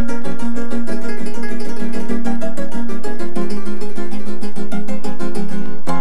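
Background music of a plucked string instrument picking quick, even notes, with a brief break just before the end.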